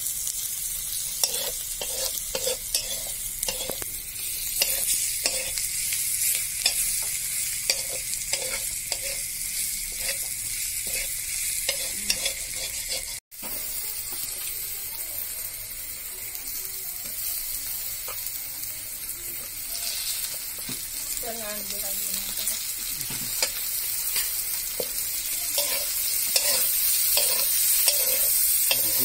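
Pork pieces and sliced onion sizzling in hot oil in a metal wok, with a metal ladle scraping and tapping the pan as it is stirred. The sound drops out for a moment about 13 seconds in.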